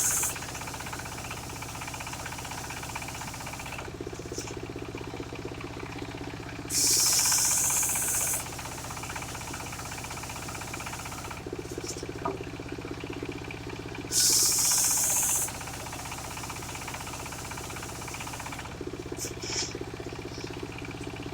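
Mobile circular sawmill running steadily, with a loud hissing rasp of about a second and a half each time the blade bites through the wood, twice about seven seconds apart. It is sawing logs of anggrong, waru and mahogany into planks.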